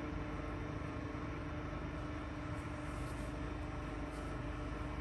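Zopf ZB 70/2 M section bending rolls running, their drive turning the rolls as a steel tube is bent into a curve: a steady hum with one constant tone over a low rumble.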